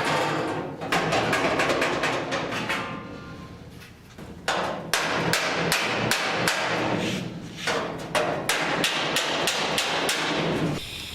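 A steel body hammer striking sheet steel against a dolly in a run of sharp blows, about three a second, with a short pause about three to four seconds in. The blows are flattening car-body panel metal that welding has shrunk and warped.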